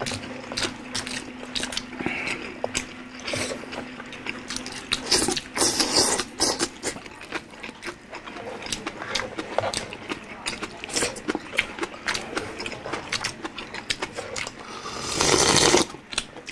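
Close-up eating sounds: wet chewing and lip smacks, a rapid run of small clicks, from two people eating with their hands. Near the end comes a loud slurp of beef broth sipped from a bowl.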